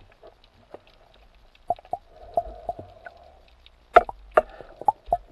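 Heard underwater: a speargun shot and the knocks and clicks of its steel shaft with a speared parrotfish struggling on it. A string of sharp clicks, the loudest about four seconds in.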